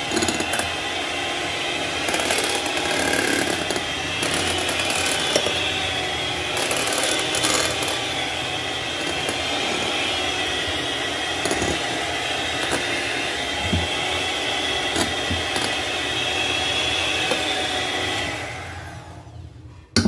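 Electric hand mixer running steadily, its twin wire beaters whipping thick cream in a glass bowl. It winds down and stops a couple of seconds before the end.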